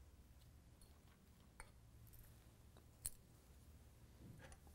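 Near silence: room tone with two faint clicks from lab equipment being handled, about a second and a half in and again about three seconds in.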